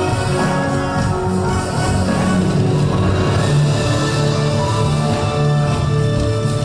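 Music with held instrumental notes over a steady low part.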